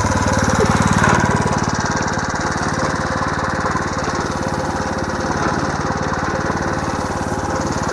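Small 3.5-horsepower engine running steadily under load, driving a home-made mini hay baler as it packs hay into the bale chamber.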